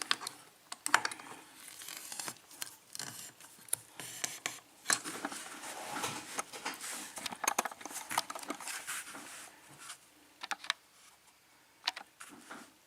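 Small metallic clicks, taps and light rustling of a pin-tumbler lock cylinder and picking tools being handled, coming irregularly and going quieter near the end.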